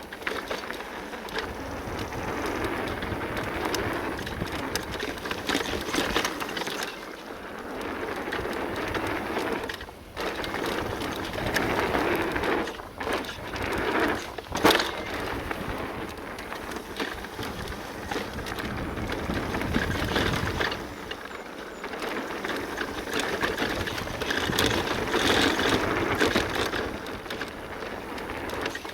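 Full-suspension e-mountain bike riding fast down a dirt and gravel trail: a steady rush of tyres on loose ground that swells and fades with the terrain, with scattered rattles and knocks from the bike, one sharp knock about halfway through.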